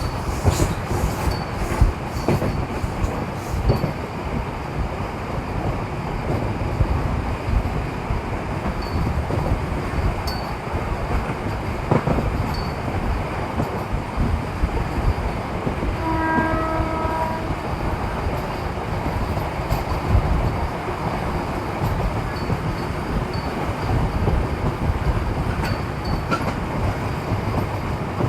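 Indian Railways MEMU electric train running on the track with a steady rumble and clatter, with sharp clicks from the wheels over rail joints in the first few seconds. A train horn sounds once for about a second and a half just past halfway, and again right at the end.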